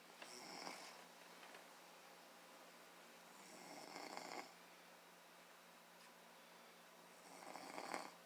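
Faint snoring: three snores about four seconds apart. Each lasts about a second, builds up and then stops short.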